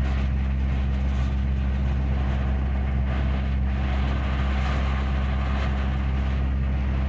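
Semi-trailer truck's diesel engine droning steadily, heard inside the cab while driving on a wet road in the rain. A hiss of rain and wet tyres runs underneath and swells for a few seconds in the middle.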